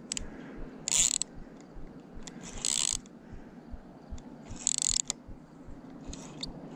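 Carp fishing reel ratcheting, a fast run of small clicks as a carp takes line on a run, with three louder brief hissing bursts.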